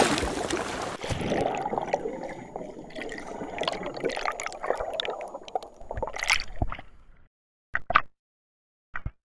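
Underwater bubbling and gurgling sound effect, loudest at the start and fading away until it stops about seven seconds in. A few short clicks follow, two close together and then one more.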